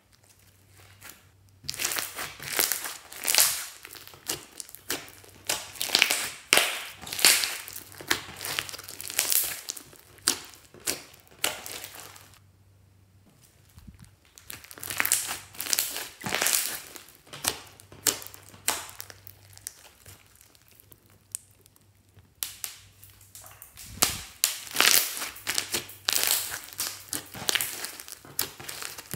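Hands squeezing, stretching and pressing a thick blue slime packed with small beads, giving crackling, squishing sounds. These come in three long stretches of dense little pops, with short pauses between.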